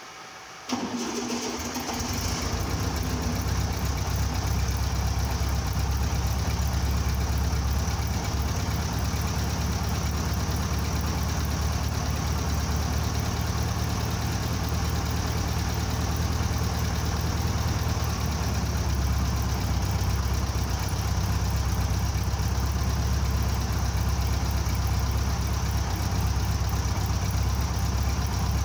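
VW 1300's air-cooled flat-four engine, fitted with a Solex 30 PIC carburettor, starts about a second in and settles into a steady idle.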